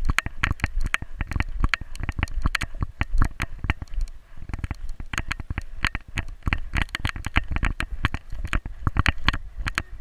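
A Newfoundland dog walking through deep snow, heard from a camera strapped to its back: a fast, irregular run of knocks, crunches and rubbing as the dog's gait jolts the mount and its paws break the snow.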